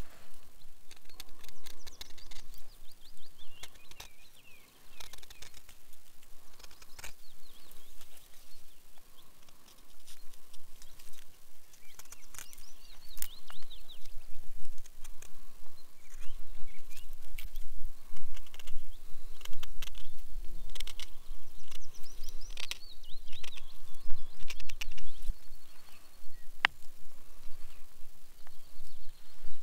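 A carving knife cutting and scraping at a small birch wood container in short, irregular strokes. Birds sing throughout.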